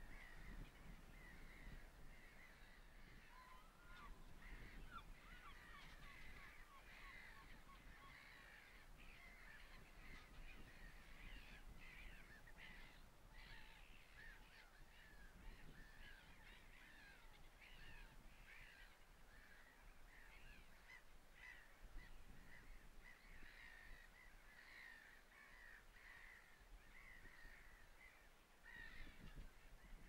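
Faint, continuous chatter of wild birds calling, many short high notes overlapping, with a short falling run of notes a few seconds in.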